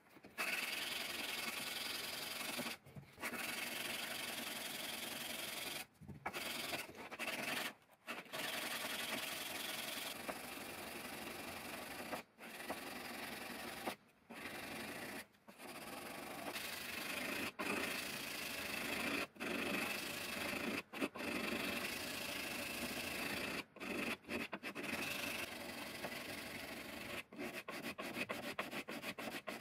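Carbon-steel knife blade being hand-sanded with an abrasive, a steady rubbing scrape in long strokes with brief breaks between them, turning to quick short strokes several times a second near the end.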